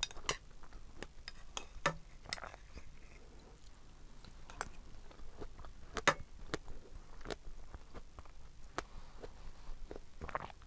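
Close-up eating sounds: strawberries being chewed, with irregular sharp wet mouth clicks and smacks, the loudest about two and six seconds in.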